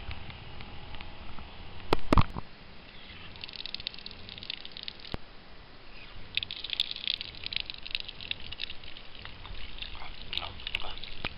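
Water poured in a thin stream onto an animal skull and wooden boards, splashing and pattering in spells. A couple of heavy thumps about two seconds in are the loudest sound.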